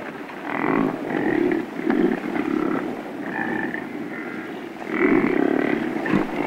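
American bison calling: a series of low calls, several close together in the first few seconds and a louder group about five seconds in.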